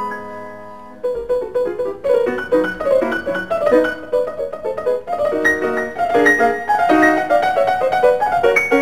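Piano music: a held chord dies away for about a second, then quick runs of notes start.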